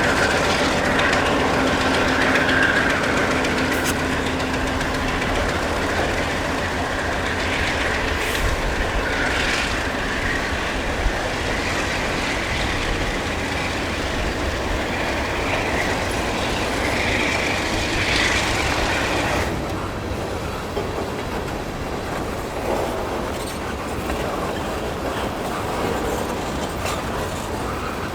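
Freight train rolling past, its wheels clacking over rail joints, with brief spells of high wheel squeal. About two-thirds of the way through the sound suddenly turns duller and a little quieter.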